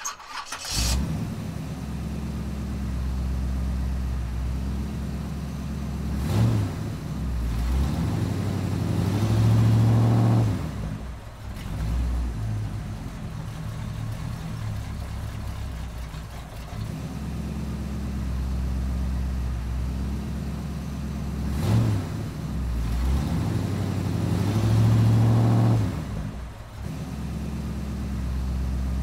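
A tractor engine running steadily, revving up and settling back twice about fifteen seconds apart.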